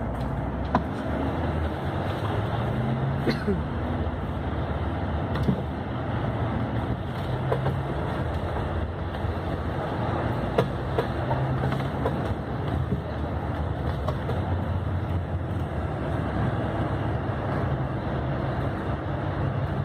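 Cabin noise inside a moving long-distance coach: a steady engine hum and road noise, the engine note rising and falling, with scattered short clicks and rattles from the cabin.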